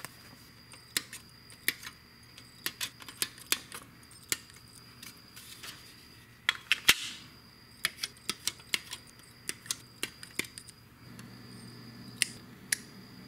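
Light clicks and taps of hard plastic model-kit parts, the fuselage halves, being handled and set against each other and the workbench, the loudest few coming close together about seven seconds in. A faint low hum comes in near the end.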